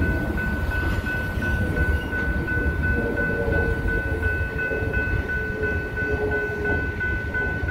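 Grade-crossing warning bell ringing in rapid, even strokes, about three a second, over the low rumble of freight cars rolling slowly past.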